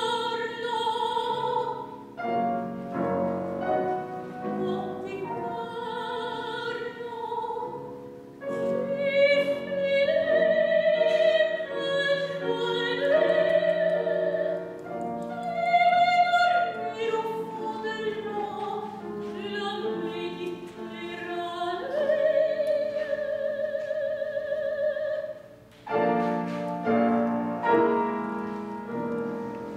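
Operatic soprano singing in French with wide vibrato and long held notes, accompanied by piano; the music pauses briefly near the end, then resumes.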